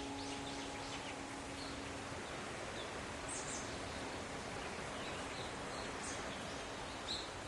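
Forest ambience: a steady rushing hiss with a few short, high bird chirps scattered through it. A ringing, bell-like tone left over from just before fades out in the first two seconds.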